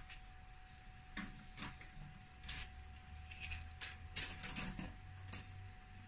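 Scattered light clicks and rattles from a retractable tape measure being extended and handled against the plastic lining of a refrigerator freezer compartment, over a faint steady tone.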